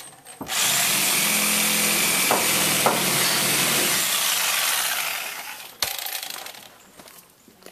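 Power saw cutting through wood: it runs loud and steady for about three and a half seconds, then winds down, followed by a couple of knocks.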